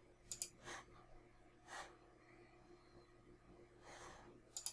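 Near silence: faint room tone with a few soft breaths and a couple of quiet mouse clicks, one shortly after the start and one near the end.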